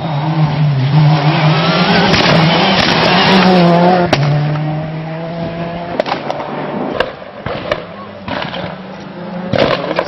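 Skoda Octavia WRC rally car's turbocharged four-cylinder engine at full throttle passing close by, revving up and shifting gear with a sharp drop in pitch about four seconds in. The sound then fades as the car pulls away, broken by a few sharp cracks.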